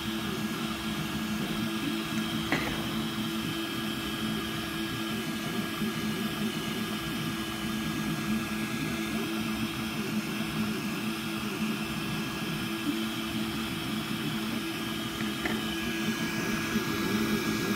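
Delta 3D printer running a print: a steady hum and whir of its fans and stepper motors. There are two light clicks, one a few seconds in and one near the end.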